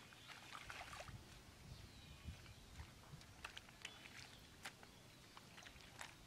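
Faint wet squelches, crackles and clicks of hands digging and pulling grassy mud out of shallow muddy water, as scattered short sounds over a low hiss.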